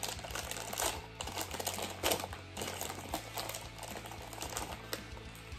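Packaging being handled and opened by hand: a run of irregular clicks and rustles, with a few sharper snaps scattered through.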